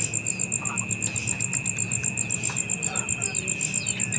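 Insect chorus: a high, rapidly pulsing chirp at about eight pulses a second over a steady high-pitched drone, with scattered short bird chirps.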